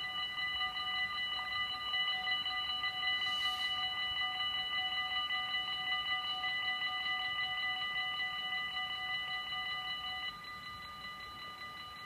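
Dutch level-crossing warning bells ringing rapidly and continuously, several electric bells together. A little after ten seconds some of the bells stop and the rest keep ringing, a bit quieter.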